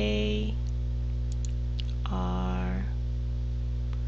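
Steady low electrical mains hum on the recording, with a few faint clicks.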